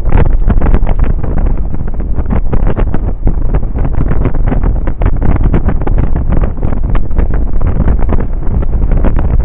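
Loud, irregular wind buffeting on the microphone of a camera on a Suzuki Burgman 650 maxi-scooter riding at road speed, with the scooter's running noise beneath it.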